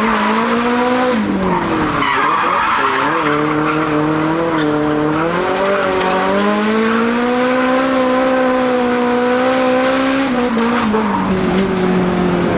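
Nissan 180SX drift car sliding sideways at high revs, its tyres screeching. The engine note falls and climbs several times as the throttle is worked through the slide.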